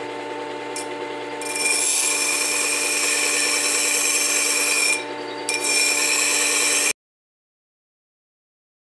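Worksharp WS3000 sharpener motor running steadily, with the back of a steel plane iron pressed flat on its spinning 120-grit abrasive disc: a loud grinding hiss that starts about a second and a half in, breaks off briefly near the middle, and resumes. The sound then cuts out abruptly about two seconds before the end. This is the back of the iron being flattened.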